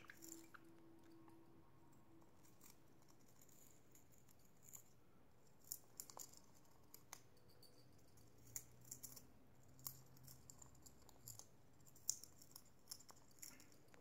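Two budgies biting and chewing at a strip of balsa wood: faint, irregular crisp clicks and snips from their beaks on the wood.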